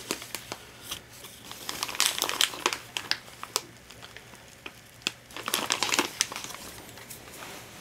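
Thin clear plastic bag crinkling and rustling as hands handle it around the potting mix. It comes in irregular crackling bursts, busiest about two seconds in and again near six seconds.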